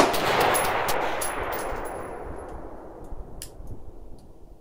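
A single AR-style rifle shot right at the start, its echo rolling away and fading over about three seconds, with a few faint ticks after.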